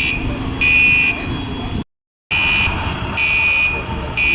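Building fire alarm sounding in repeated electronic beeps, each about half a second long and roughly one a second. The sound cuts out completely for a moment about two seconds in.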